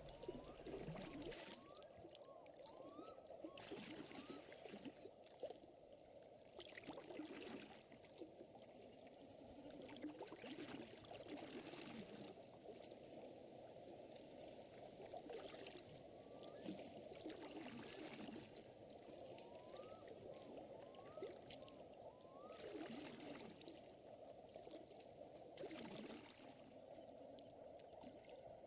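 Faint water lapping and trickling, swelling softly every few seconds, with short rising chirps in quick little runs now and then.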